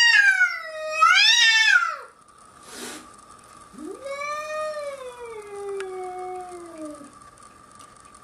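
Cat yowling in a standoff with a bobcat through a glass door: one loud, drawn-out yowl that wavers up and down in pitch, then a short noisy burst, then a second, quieter yowl that slowly falls in pitch.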